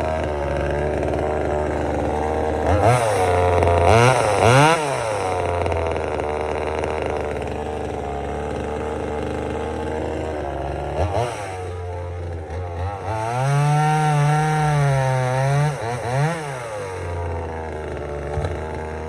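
Vevor top-handle 25.4cc two-stroke chainsaw idling, revved in a few quick blips about three to five seconds in, then held at higher revs for about three seconds, its pitch wavering, before dropping back to idle.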